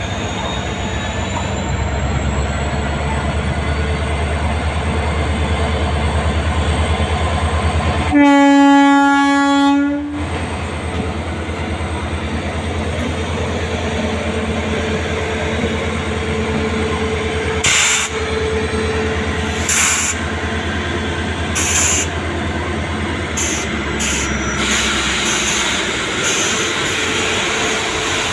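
Indian Railways electric locomotive hauling LHB coaches rolls past with a steady rumble. About eight seconds in, a locomotive horn sounds one blast of about two seconds, the loudest sound. Later the coaches' wheels clack over the rail joints several times as they go by.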